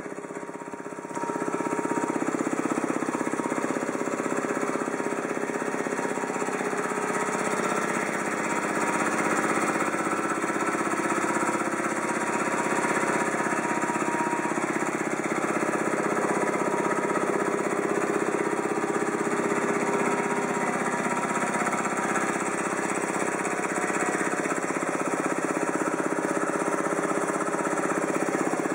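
Ingersoll Rand T30 two-stage reciprocating air compressor running, its belt-driven pump chugging in a fast, steady rhythm alongside its electric motor. It comes up to full running level about a second in and then holds steady.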